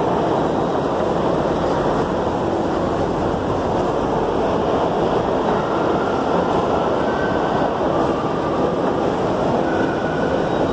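Escalator running: a steady mechanical rumble, with a faint high squeal around the middle.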